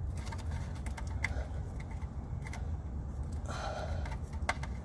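A few sharp clicks from the plastic wiring connector on a Jeep's starter being worked free and handled, over a steady low rumble. The connector is suspected of poor contact from moisture and rust, the cause of the click-no-crank fault.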